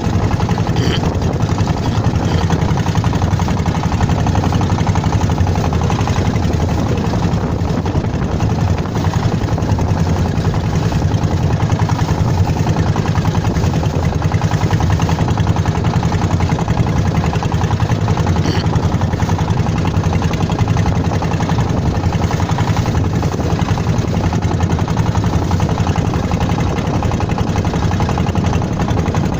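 Inboard engine of a klotok, a small wooden motorboat, running steadily with an even low chugging.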